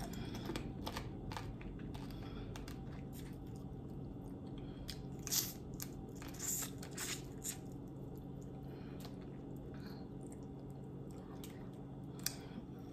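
Crawfish being eaten close to the microphone: scattered shell cracks and chewing, a few louder cracks in the middle and one near the end, over a steady low hum.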